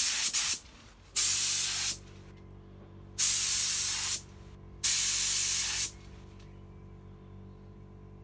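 Gravity-feed spray gun with a 1.8 mm tip spraying primer in four bursts, each about a second long, as the trigger is pulled and released. A faint steady low hum runs beneath from about a second in.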